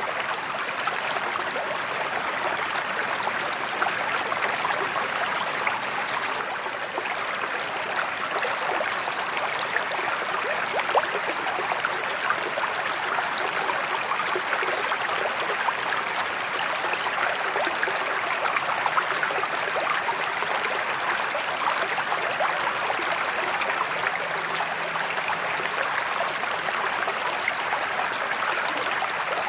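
Water from a sheet spillway falling into a koi pond, a steady splashing and rushing without let-up.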